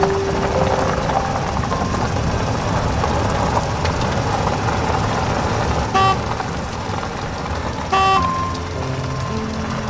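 Truck sound effect: a steady engine rumble with short horn toots about six and eight seconds in and again at the very end.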